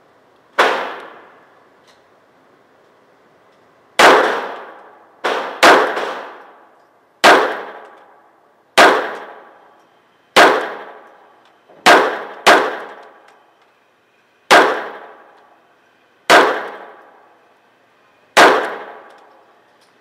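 Sig Sauer Mosquito .22 LR semi-automatic pistol firing twelve single shots, one to two seconds apart, each followed by an echoing tail.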